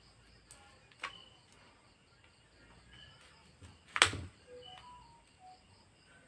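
A few sharp clicks and taps from handling a phone and small repair tools: one about a second in and a much louder one about four seconds in. Faint short chirps sound in the background.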